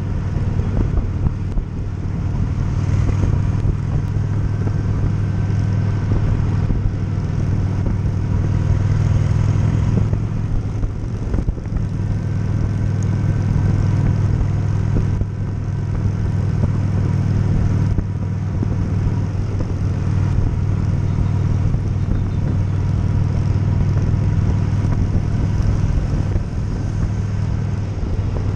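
V-twin custom motorcycle engines, a Honda Shadow 750 and a Yamaha DragStar 650, running steadily while riding, heard from on board.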